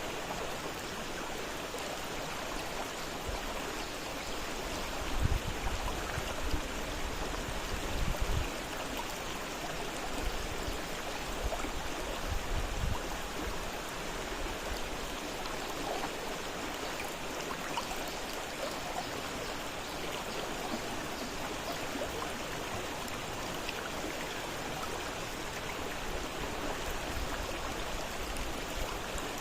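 Fast-flowing river water rushing and splashing steadily, with a few brief low rumbles in the first half.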